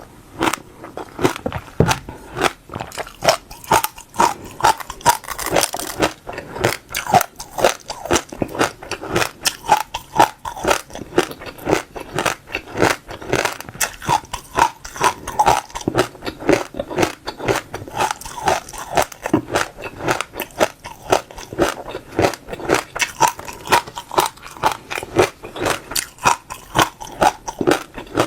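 Close-miked chewing of crunchy seeds: a continuous run of crisp cracks and crunches, several a second, as the seeds are bitten and crushed between the teeth.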